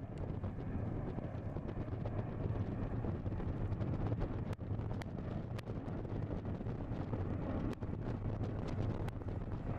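Low, steady roar of a four-engined Boeing 747-400 jet climbing out after takeoff, mixed with wind buffeting the microphone.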